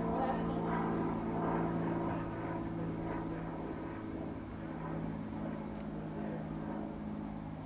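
Southern yellowjackets buzzing in numbers at the nest entrance, queens and workers together: a steady low drone of several overlapping pitches.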